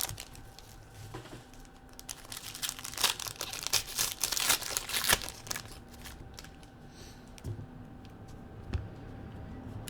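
Trading card pack wrappers being torn open and crinkled by hand, a dense run of crackling and tearing in the middle that thins out to a few scattered crinkles.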